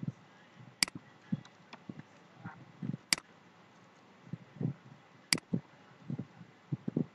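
Computer mouse clicking three times, a couple of seconds apart, with soft keyboard keystrokes tapping in between as text is typed into a form.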